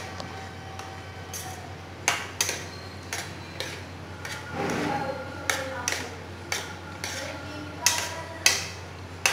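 A spoon stirring boiled macaroni through a thick, creamy tomato-mayonnaise sauce in a non-stick pan, knocking and scraping against the pan at irregular intervals, a dozen or so sharp clinks in all.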